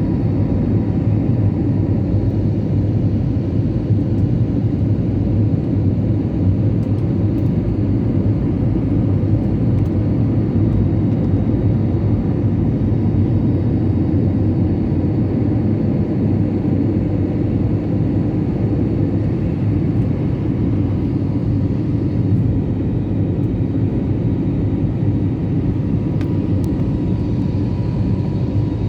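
Jet airliner's engines and airflow: a steady, loud rumble with a few faint, thin, steady tones above it.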